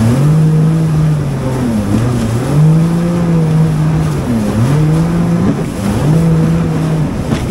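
Jet ski engine running under throttle. Its pitch drops and climbs back up four times, every second or two, as the throttle is eased off and opened again.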